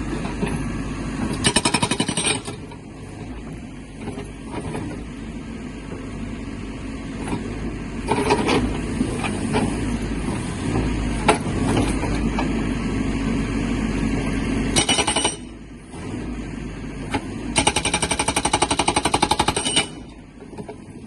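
GB GBN90TL hydraulic breaker on a Caterpillar 424B backhoe loader hammering in short bursts of rapid blows, the longest about two seconds near the end. The backhoe's diesel engine runs steadily underneath.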